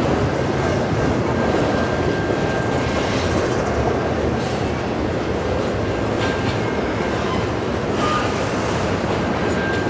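Double-stack intermodal container train rolling past: a steady rumble and clatter of the well cars' steel wheels on the rails, with a faint high wheel squeal now and then.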